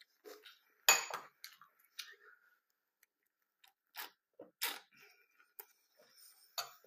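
A person chewing and crunching cornflakes, a string of short crisp crunches with pauses, the loudest about a second in.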